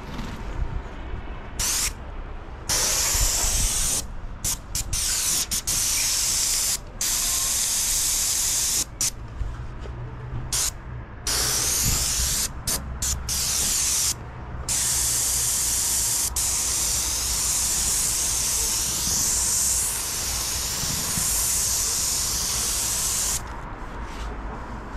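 Airless paint spray gun hissing in short bursts as the trigger is pulled and released, then spraying in one long unbroken pass through the second half, stopping shortly before the end.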